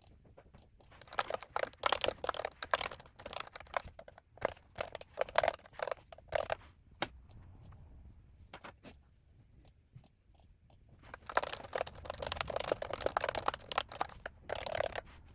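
Typing on a computer keyboard: runs of rapid key clicks, with a lull of scattered clicks in the middle before a second fast run.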